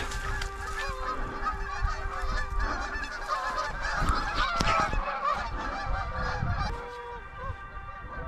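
A flock of snow geese calling in flight, a dense chorus of many overlapping high honks that swells in the middle and thins toward the end.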